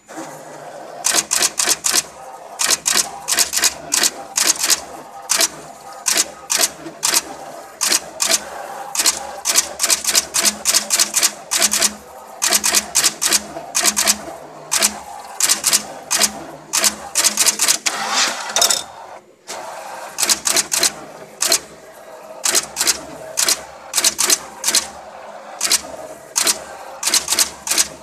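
Axial insertion machine's jumper wire station cutting, forming and inserting jumper wires into a circuit board: a rapid run of sharp mechanical clacks, several a second, over a low pulsing hum, with a brief pause about two-thirds of the way through.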